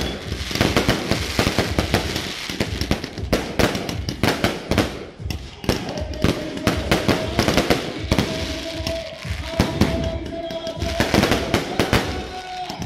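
A fireworks barrage firing in rapid succession: a dense stream of bangs and crackles as shells launch and burst overhead. A steady tone sounds through the second half.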